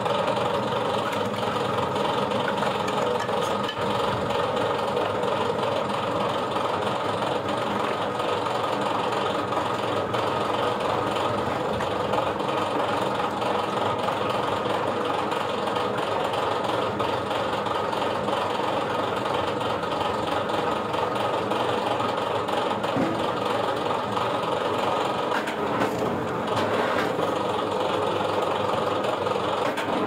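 Motor-driven firewood splitter running steadily, a continuous mechanical drone at an even level.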